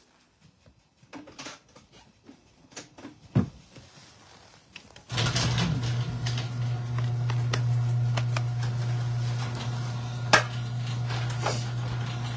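A few scattered clicks and knocks of handling, then about five seconds in a loud, steady low machine hum starts and keeps running.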